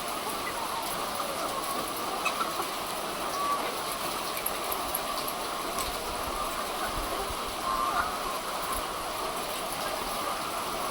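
Poultry-house ambience: a steady hiss from the cooling equipment, with a flock of chickens calling faintly and briefly now and then.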